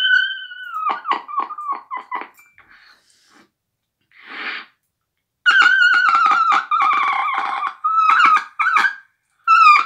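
A small whistle-type instrument blown at the face, playing a high, wavering tune in short choppy notes, with a breathy puff of air about four seconds in.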